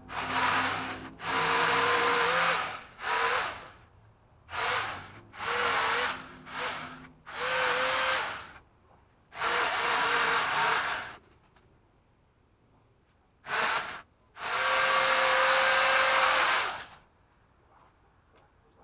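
Pole saw run in about ten short bursts while trimming tree branches. Each burst starts with a quickly rising motor whine that then holds steady, and the last burst is the longest.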